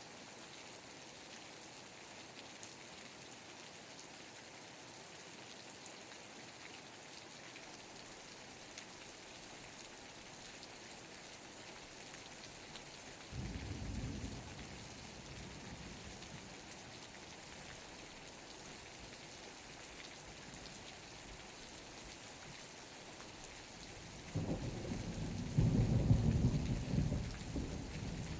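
Steady rain falling, with two rolls of thunder: a short rumble about halfway through, and a louder, longer one that starts near the end.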